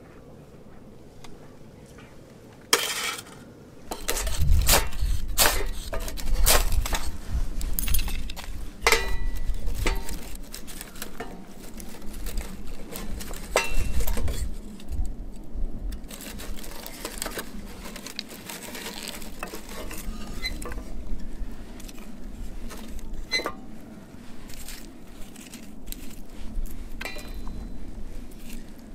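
Clinks and knocks of metal camp cookware and split firewood being handled, over a low rumble, for the first half. Then a small kindling fire crackling softly with occasional snaps.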